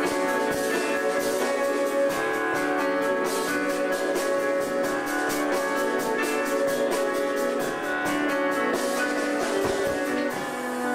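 A live chamber-rock ensemble playing: bowed strings (violin and viola) hold sustained notes over an acoustic guitar, with a quick, steady rhythm of short strokes running underneath.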